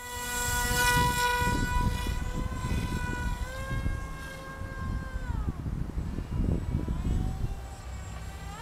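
Electric motor and propeller of a small foam RC flying wing whining at a steady pitch, rising about three seconds in, dropping back about two seconds later and rising again near the end as the throttle changes. A low, uneven rumble lies under it.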